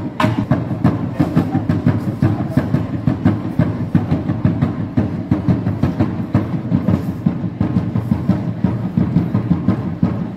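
Drum-led music with a fast, even, repeating beat of about three strokes a second.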